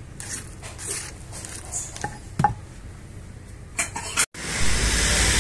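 Spatula scraping and tapping against a stone mortar as gado-gado vegetables are tossed in peanut sauce, a few light knocks and clicks. Just past four seconds it cuts to a steady, louder rush of roadside traffic noise.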